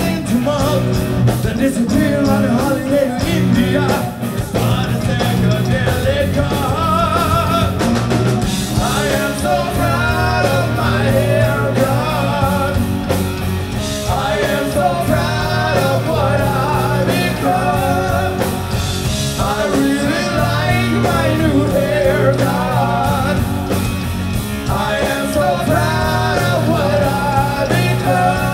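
Live rock band playing a loud full-band passage of distorted electric guitars, bass and drums, with a wavering high lead line on top.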